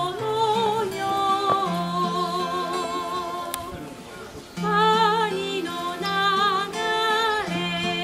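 A woman singing with a wide vibrato over acoustic guitar accompaniment. The voice breaks off briefly about halfway through, then comes back in.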